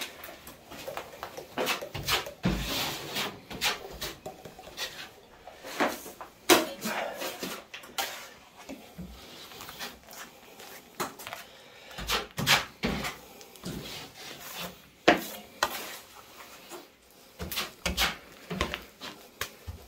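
A steel taping blade scraping and slapping gypsum plaster compound on a hawk as accelerator is worked into the mix, with irregular scrapes and sharp taps.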